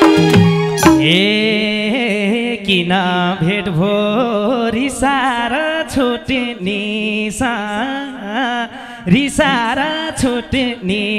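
Man singing a lok dohori (Nepali folk song) verse into a microphone, his melody bending up and down over folk instrumental accompaniment with steady held notes.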